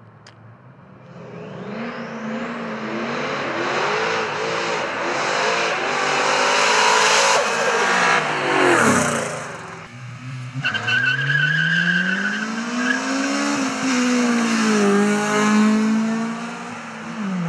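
Two V8 cars, a Ford Mustang GT and a turbocharged Chevrolet Camaro SS, racing at full throttle: the engines build from a distance, pass close with a sharp drop in pitch about eight to nine seconds in, then an engine revs up and winds back down as they run away. A short high wavering whine comes in about eleven seconds in.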